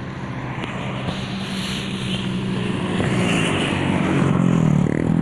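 A bus engine running steadily. About four seconds in, its pitch sinks, then climbs sharply again near the end, like a gear change as it pulls away.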